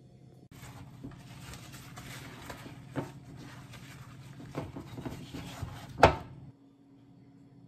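Handling of a cheesecloth bundle of strained Greek yogurt: cloth rustling and rubbing, with a few soft knocks and a sharper knock about six seconds in, which is the loudest sound.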